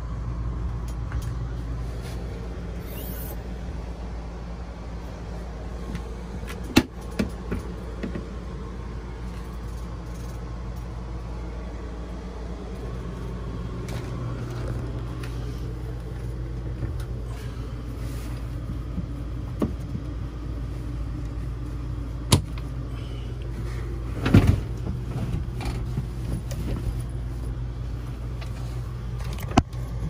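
A steady low mechanical hum, like a running motor or engine, growing a little fuller about halfway through. A few sharp knocks sound over it.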